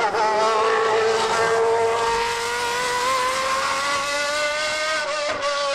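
Honda 3.5-litre V12 of a McLaren MP4/7A Formula One car at high revs, its note climbing slowly as the car accelerates through a corner on a wet track, with a steady hiss under it. The note dips briefly at the very start and again near the end.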